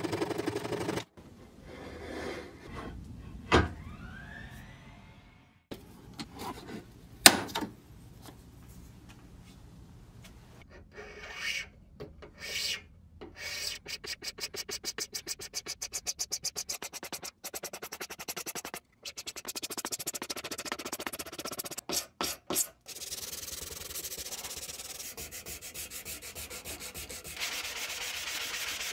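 Hand-scraping and sanding a wooden hickory hammer handle. First come a few knocks and clinks, then a run of rapid, even scraping strokes, then steady back-and-forth rubbing of abrasive on the wood.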